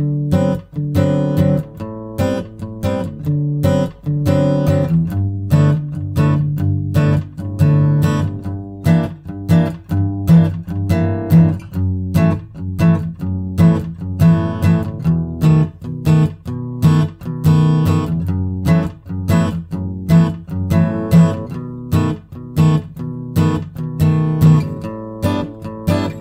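Background music: acoustic guitar plucked and strummed at a steady rhythm.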